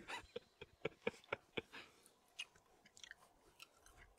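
Faint chewing: a person chewing a bite of fire-roasted grouse meat, a run of short wet clicks from the mouth that come several times a second at first and thin out after about two seconds.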